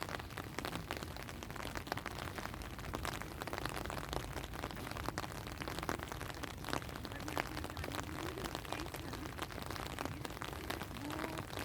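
Steady rain falling, with many individual drops ticking sharply close by over an even hiss and a low rumble underneath.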